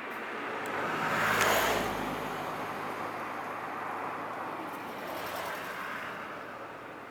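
A motor vehicle drives past close by, its engine and tyre noise swelling to a peak about a second and a half in and then fading, with engine noise running on underneath.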